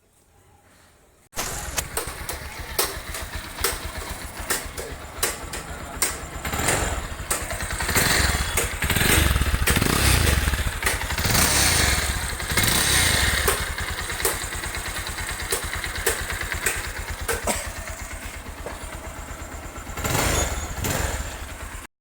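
Bajaj Pulsar 220 single-cylinder motorcycle engine starting about a second in and running, revved up several times in the middle and again near the end, between stretches of idle: a test run after timing chain work. It cuts off suddenly at the end.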